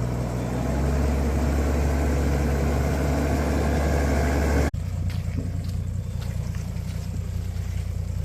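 Four-wheel-drive vehicle's engine running steadily, then an abrupt cut about four and a half seconds in to a quieter, lower engine sound with light scattered ticks over it.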